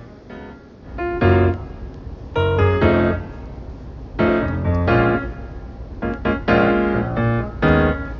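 Background music played on a piano-like keyboard, in chords with a low bass, starting about a second in.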